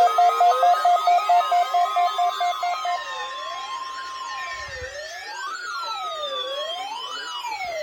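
Electronic siren sounds layered over a steady warning tone from the weather radio. For the first three seconds a two-tone alarm pulses about four times a second amid rising and falling wails. The steady tone cuts off about four and a half seconds in, leaving quick repeated up-and-down yelps and slow falling wails.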